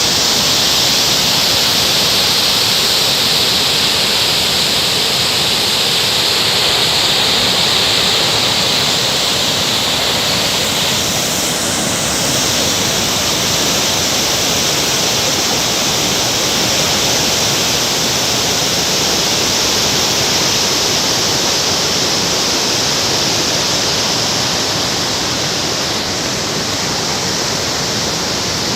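Waterfall: water pouring and splashing in a loud steady rush.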